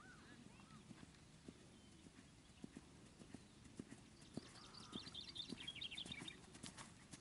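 Dull hoofbeats of a horse trotting on a sand arena surface, a steady run of soft thuds about every half second. A patter of quick high chirps joins briefly in the second half.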